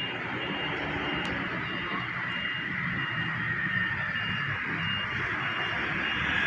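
Street traffic noise with a vehicle's reversing alarm, a short electronic beep repeating about twice a second.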